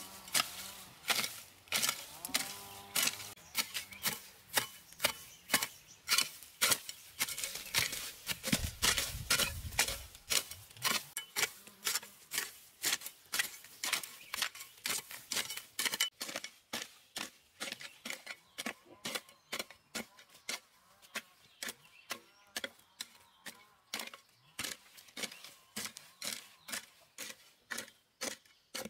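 Hand hoe chopping into dry, grassy soil over and over, each stroke a short scraping thud, about two strokes a second.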